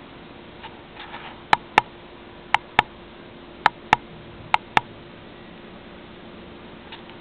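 A sleeping pet snoring as a series of short, sharp clicks, in four pairs about a second apart.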